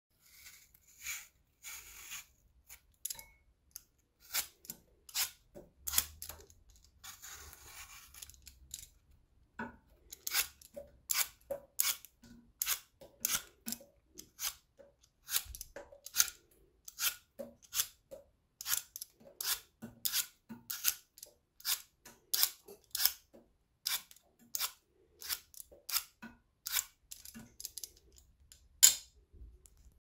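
Apple being peeled: short crisp scraping strokes of a blade through the skin. They come sparsely at first, with one longer scrape, then settle into about two strokes a second; one louder stroke comes near the end.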